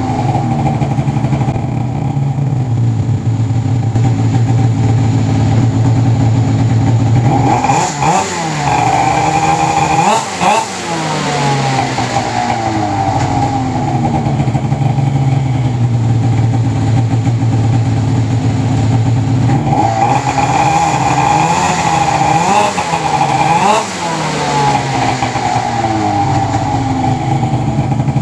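2002 Arctic Cat ZR 800 snowmobile's two-stroke twin engine running on a stand, freshly rebuilt and on a break-in heat cycle. It holds a steady fast idle, is revved up and back down a few times about eight seconds in, then settles, and is blipped again several times about twenty seconds in.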